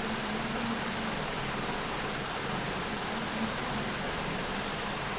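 Steady hiss of background noise.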